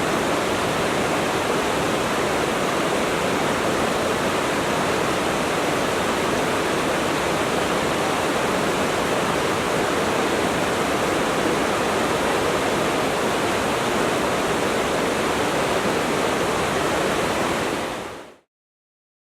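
Water stream flowing steadily, a dense even wash of water noise that fades out quickly near the end.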